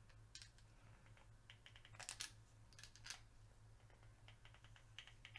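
Faint, scattered light clicks of small metal Tec-9 parts being handled as a piece is screwed in by hand, over a steady low electrical hum.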